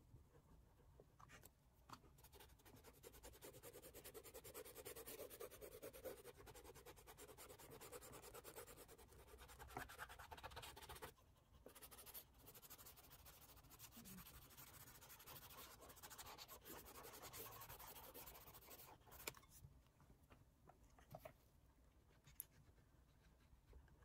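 Faint scratchy rubbing of an oil pastel stick and a cotton swab on sketchbook paper as the color is laid on and blended, in steady strokes, with a brief pause about halfway and softer strokes in the last few seconds.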